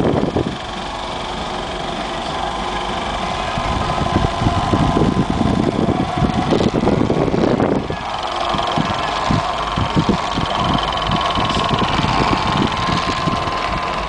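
Jugs Field General football throwing machine running, its spinning wheels and motors giving a steady hum with a high whine, under irregular low thumps.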